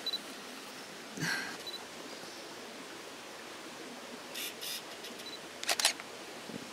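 Steady hiss with brief rustles and clicks from a hand-held camera being handled and moved close in. A quick cluster of sharp clicks comes near the end.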